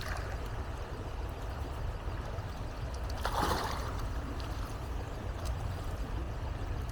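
Shallow creek water running, with a steady low rumble of wind on the microphone. A short, louder rush of noise about three seconds in.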